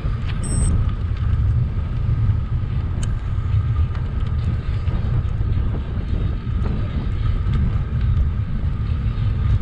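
Steady low wind rumble buffeting the microphone of a camera on a moving bicycle rolling along a paved road.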